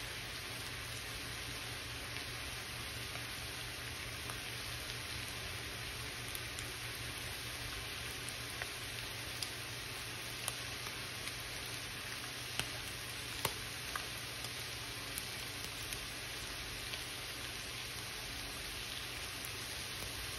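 Thinly sliced beef simmering and sizzling in a soy, sake and mirin sauce in a Lodge cast-iron skillet: a steady hiss with scattered pops that come more often after the first several seconds.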